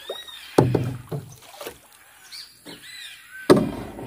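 Two heavy knocks on a boat, about three seconds apart, each with a short low rumble after it, as something strikes the hull.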